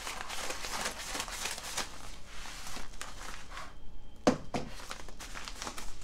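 Scissors cutting across the top of a yellow padded bubble mailer, with the envelope's paper and bubble lining crinkling as it is cut, then a single sharp knock about four seconds in and more rustling as the opened mailer is handled.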